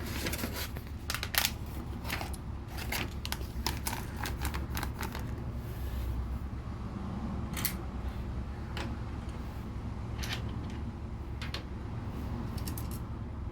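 LEGO plastic pieces clicking and rattling as they are picked out and handled, a quick run of small clicks at first, then scattered single clicks, over a steady low hum.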